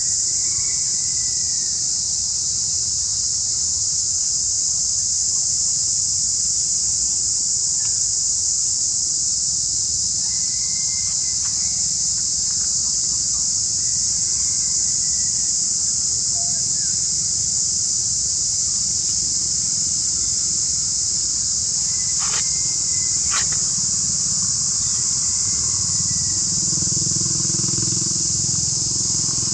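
Steady, shrill drone of an insect chorus, unbroken throughout. Under it a low rumble swells near the end, with a few faint short chirps and two sharp clicks about three quarters of the way through.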